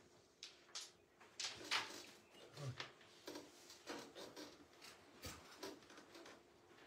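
Soft, irregular scrapes and light clicks of a carrom striker being slid and tapped along the baseline of a powdered carrom board while a shot is lined up; the sharpest click comes a little under two seconds in.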